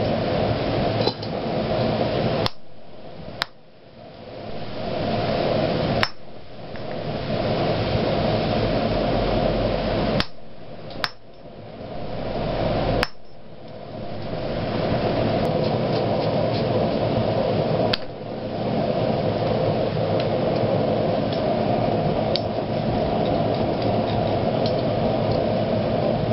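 A handful of sharp, irregularly spaced hammer blows on hot iron over a steel anvil plate, about eight in all, most of them in the first half. Under them runs a steady rushing noise.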